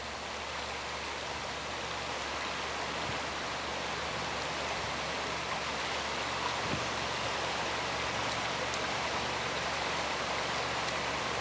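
Steady rush of a flooded river's fast current, an even hiss of running water.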